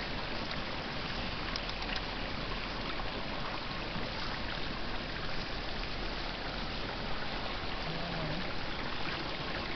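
Boiling hot-spring water in a steaming volcanic pool, giving a steady, even rushing and bubbling noise.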